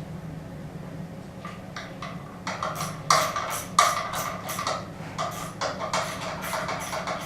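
Metal hand tools clicking and clinking against the engine in a quick rhythm of about three to four strokes a second, starting about a second and a half in, with a metallic ring, over a steady low hum.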